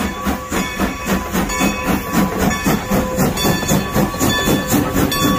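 Steam locomotive working as it passes close, its exhaust chuffing in a regular beat of about three a second over a steady hiss of steam.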